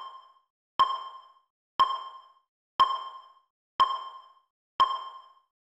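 Countdown sound effect for a film-leader countdown: a short ringing ding once a second, each struck sharply and dying away within about half a second, ticking off the numbers as they count down.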